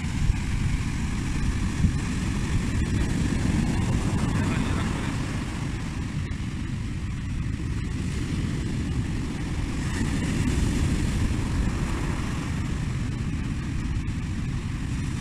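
Heavy ocean surf breaking and washing up a sandy beach, a steady low rush of water, with wind rumbling on the microphone.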